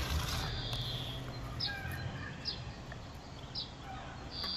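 Small birds chirping: a longer high note near the start and another near the end, with short high chirps about once a second between them, over a steady low background noise.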